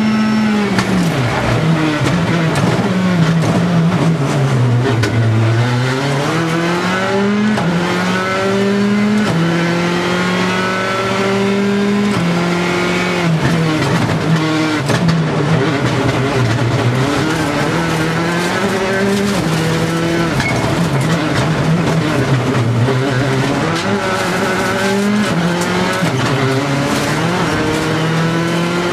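Škoda Fabia WRC's turbocharged four-cylinder engine heard from inside the cabin at full rally pace. The pitch falls over the first few seconds as the car slows, then climbs again and again, each climb cut by a quick drop as it shifts up a gear.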